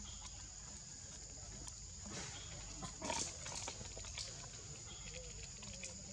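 Baby macaque making a few short calls, the loudest about three seconds in and a faint wavering one near the end. A steady high-pitched whine runs underneath.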